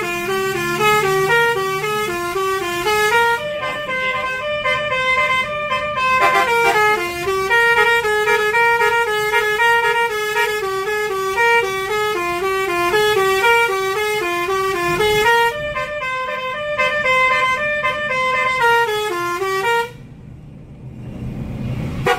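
A bus's basuri musical horn plays a fast tune of short stepped notes, heard from inside the bus cabin. It cuts off suddenly about twenty seconds in, leaving the low rumble of the bus on the road.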